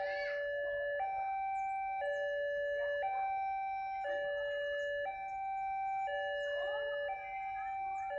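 Electronic two-tone hi-lo siren, alternating steadily between a low note and a higher note, each held about a second.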